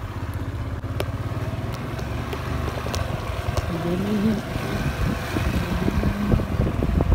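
Motorbike or scooter engine running with rushing wind noise while riding over a rough dirt road, with scattered knocks from the bumps. From about halfway through, a faint wavering pitched sound rises and falls over the rumble.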